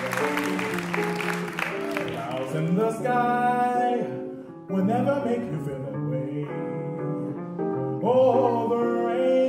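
Jazz duo: a male voice scat singing in short wordless phrases over electric guitar accompaniment.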